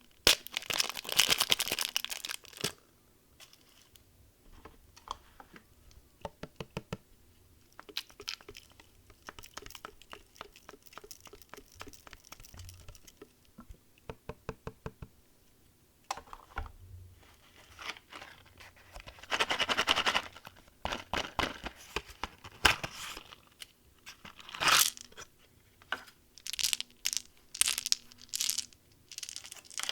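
Candy packaging being torn open and crinkled by hand, with loud bursts of crinkling at the start and about two-thirds of the way through. In between come runs of small sharp clicks and taps.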